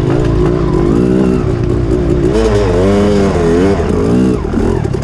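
Yamaha YZ250 dirt bike's two-stroke engine running under the rider, its pitch rising and falling again and again as the throttle is opened and closed.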